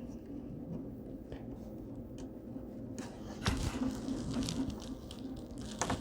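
Faint handling noises of small clicks and rubs as the webcam cable's connector is worked into place inside an iMac, with a steady low hum underneath. The loudest clicks come about halfway through and just before the end.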